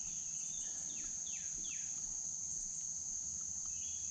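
Insects trilling steadily at a high pitch, with a few quick falling bird notes about a second in.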